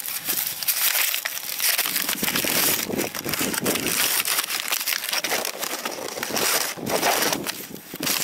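Dry maize husks and leaves crackling and rustling as an ear of corn is handled close to the microphone. The crispness comes from the crop being very dry, ripe past its proper chopping stage.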